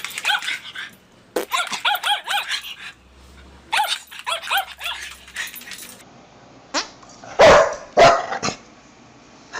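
Dog making quick rising-and-falling yipping cries in three short runs. Then come four loud, short, noisy bursts, the loudest two about a second apart.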